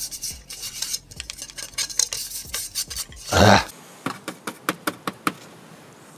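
Hard, cheap-feeling plastic clicking and rattling as it is handled and tapped. After a short louder rush of noise about three and a half seconds in comes a quick run of sharp clicks as a finger taps the silver plastic trim panel around the light switches of an Audi A1 dashboard.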